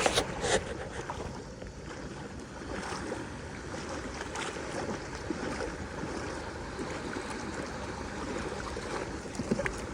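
Steady wash of shallow seawater and wind, with a couple of short ticks near the end.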